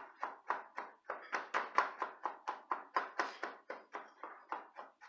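Chef's knife rapidly mincing garlic on a plastic cutting board, the blade tapping the board in quick, even strokes, about five a second.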